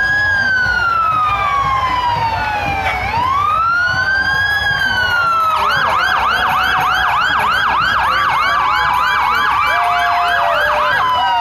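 Fire department vehicle's electronic siren: a slow rising and falling wail that switches about five seconds in to a fast yelp of about three cycles a second, then goes back to the wail near the end.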